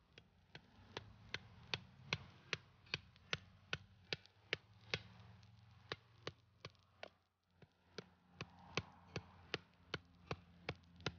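A knife chopping on a cutting board in steady, even strokes, about two or three a second, with a short pause about seven seconds in.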